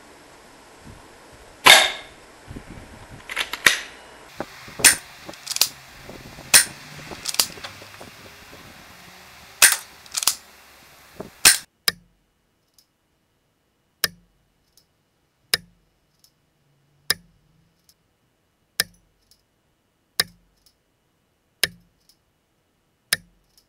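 Airsoft sniper rifle firing heavy 0.46 g BBs into a wooden plank: a string of sharp cracks from shot and impact. About ten come unevenly in the first half. From the middle on they come evenly, about one every one and a half seconds, with quiet between.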